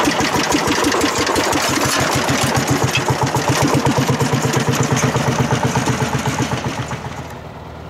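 IFA Pionier tractor's diesel engine chugging steadily under load while pulling a plough, with an even run of firing pulses; the sound drops away about seven seconds in.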